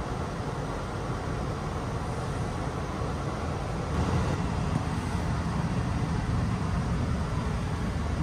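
Passenger train running: a steady low rumble that grows louder about four seconds in.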